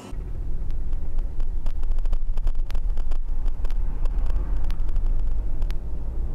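Loud, steady low rumble of a car on the move, heard from inside the cabin, with many short clicks and rattles scattered through it.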